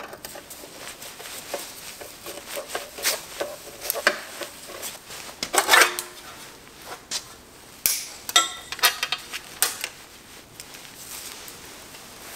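Irregular sharp clicks, snaps and light metallic clatter as cable ties are cut and the wiring on a golf buggy's steel frame is handled and pulled free. The loudest is a clatter about halfway through.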